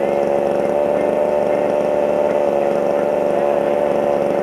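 A small engine running steadily at a constant speed, a continuous hum with no revving.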